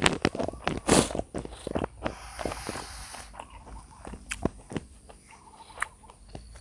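A person eating close to the microphone: bites and chewing with sharp clicks and knocks, densest in the first two seconds, and a brief hiss about two seconds in.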